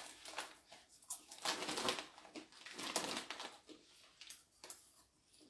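A popcorn snack bag rustling in irregular short bursts as a hand digs in for a handful, then soft crunching as the popcorn is eaten.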